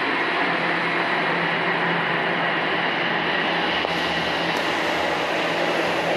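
Toronto Rocket subway train pulling out of the station and running away along the track: a steady, even noise of the train with a constant low hum.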